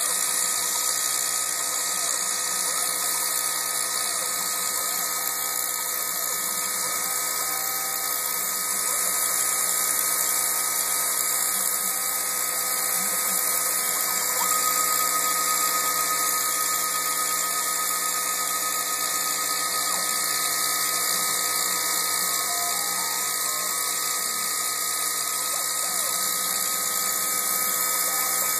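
Milling machine cutting with a steady high-pitched whine and hiss. A clear tone stands out more strongly for several seconds in the middle.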